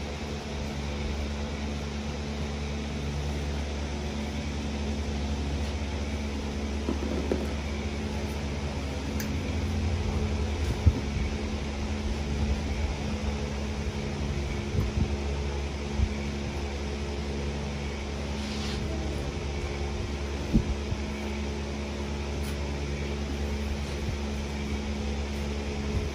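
Large floor drum fan running steadily with a low hum, with a few short knocks over it.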